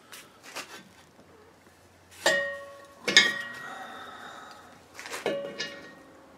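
Steel wrench clanking against a hollow steel propane cylinder while a brass fitting is tightened: a few light clicks, then three sharp metal knocks, each leaving the empty tank ringing at several pitches that fade over about a second.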